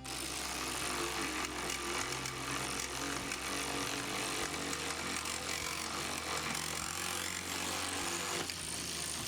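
Power tool running continuously under load on a seized, rusted motorcycle bolt, a dense harsh noise that starts abruptly.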